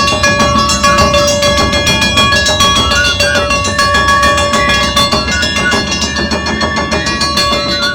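Live Japanese festival music: fast, steady taiko drumming with a held, high melody line playing over it.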